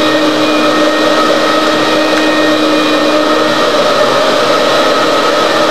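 Loud, steady whirring noise with a few humming tones running underneath, unbroken throughout, typical of a running motor or appliance.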